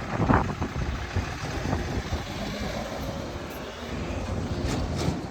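Low, noisy rumble of a vehicle going by, loudest just after the start.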